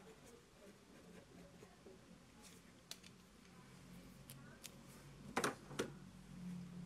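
Quiet room with faint scattered ticks and a low steady hum; about five and a half seconds in, two louder short rustling clicks as a hand touches the sketch paper on the light pad.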